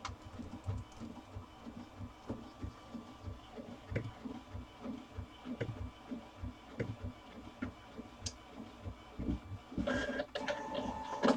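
Faint, irregular light clicks and taps of a computer keyboard and mouse being worked at a desk, a few strokes a second, with a short patch of faint pitched sound near the end.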